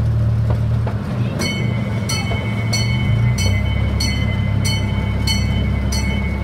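Miniature zoo train running with a steady low engine drone. From about a second and a half in, its bell rings in regular strokes, about three every two seconds.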